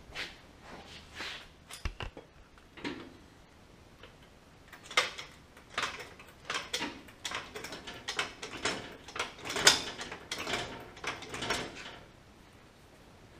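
A floor jack being handled and set under the front of a garden tractor: metal clanks and knocks, a few at first, then a quicker irregular run of them through the middle and later part.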